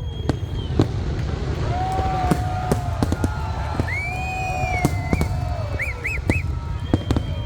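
Fireworks display: many sharp bangs and pops in quick succession, with whistling tones that slide up and down, over a steady low rumble.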